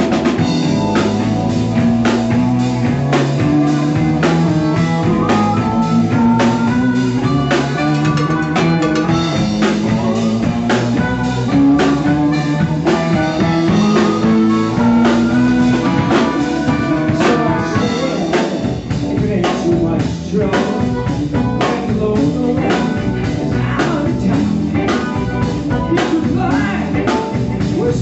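Live blues band playing: electric guitar over bass and a drum kit keeping a steady beat.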